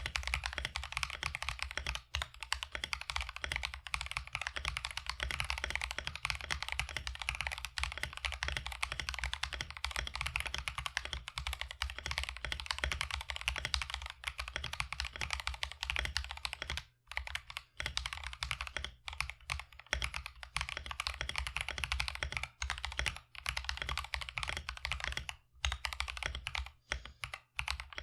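Typing on a mechanical keyboard fitted with Akko POM Brown tactile switches, which have all-POM housings: a fast, dense run of key clacks, broken by a few short pauses in the second half.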